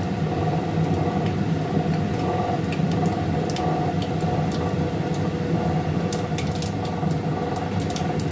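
Hot oil crackling and popping in a kadai on a gas burner as a dried red chilli fries in it, with a steady hum underneath. The pops come more thickly a little after the middle.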